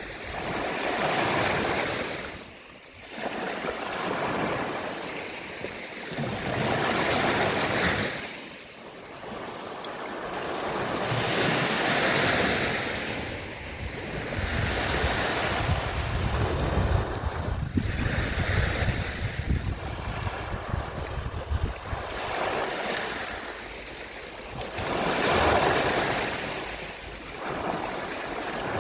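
Small sea waves washing onto a shore, each wash swelling and fading every three to four seconds. A low wind rumble on the microphone joins in around the middle.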